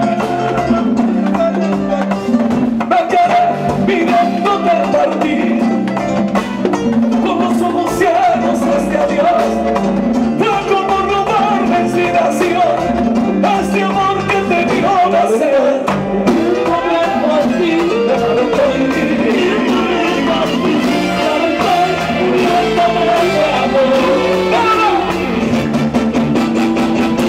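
Live Latin dance band playing loud and steadily, with a man singing over percussion including timbales and drum kit.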